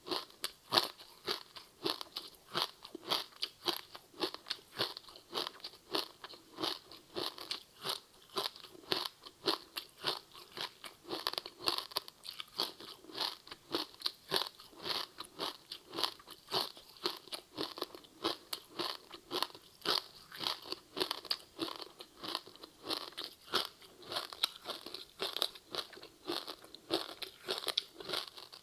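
Close-miked chewing of a crispy seaweed-wrapped rice snack: a steady run of crisp crunches, several a second, as the brittle seaweed coating is chewed.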